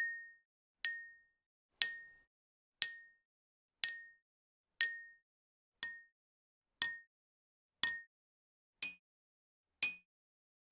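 Soft hits on glass and metal: a series of separate light clinks, about one a second, each with a short high ring that dies away quickly. The last two ring at a higher pitch than the rest.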